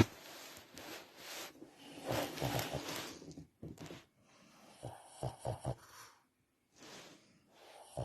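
Shih Tzu breathing noisily and snore-like through its nose while awake, the sign of its breathing problem. Rasping breaths come first, then a quick run of three short snore-like pulses about five seconds in and another near the end.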